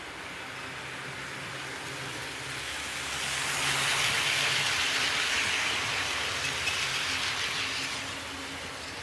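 HO scale model train running past on the track, its wheels and motor making a rushing hiss over a low hum. The sound grows louder from about three seconds in and fades again after about eight seconds.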